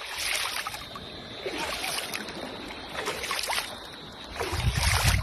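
Seawater splashing and lapping in repeated surges about every second and a half, with a low rumble near the end.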